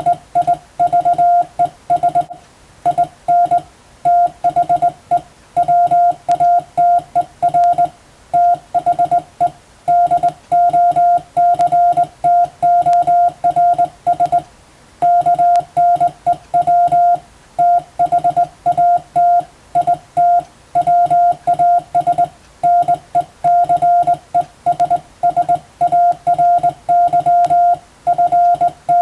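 Morse code (CW) tone keyed in dots and dashes, a single steady beep switched on and off at a steady sending pace, spelling out practice telegram text in the Latin-alphabet code. Short gaps separate the words, with a longer pause about halfway through.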